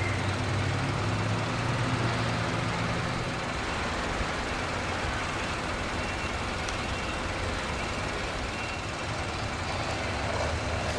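Steady running noise of semi trucks and machinery at a container terminal, with a low engine drone that fades out about three and a half seconds in.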